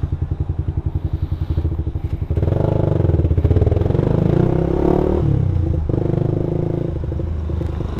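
Suzuki Satria F150 fuel-injected motorcycle's single-cylinder four-stroke engine idling with an even pulse, then pulling away about two seconds in: the revs climb, drop back around five seconds in, and the bike runs on steadily.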